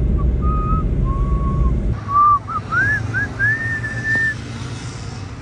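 A whistled tune of short swooping and held notes. It plays over the low rumble of a moving car, and the rumble stops abruptly about two seconds in.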